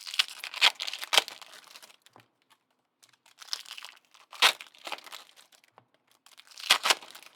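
Trading-card pack wrappers being torn open and crinkled by hand, in three bursts of crackling with short pauses between.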